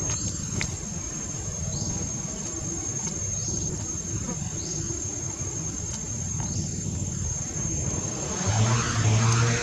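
Steady high-pitched insect drone over a low outdoor rumble, with faint short rising chirps every second or so. A low steady hum comes in near the end.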